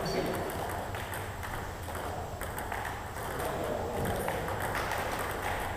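Table tennis balls being hit in rallies: irregular sharp clicks of the ball off paddles and tabletops, from the near table and a neighbouring table in the hall.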